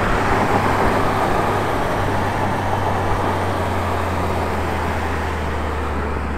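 Road and wind noise heard from inside a moving car, with a low steady engine drone underneath that drops slightly in pitch partway through.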